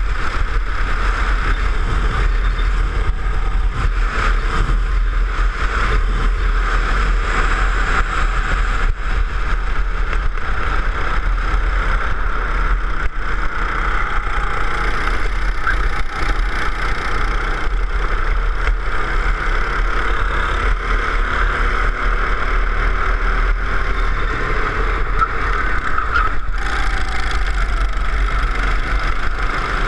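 Go-kart engine running at speed under the driver, heard from the driver's seat as a steady, loud drone. Near the end the pitch rises and falls, along with a second engine.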